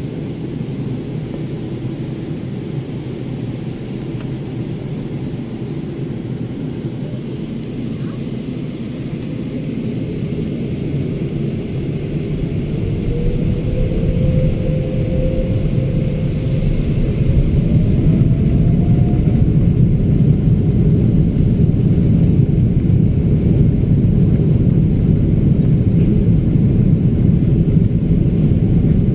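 Airliner jet engines heard from inside the cabin: a steady low rumble that grows louder partway through as the engines spool up to take-off power, with a rising whine along the way.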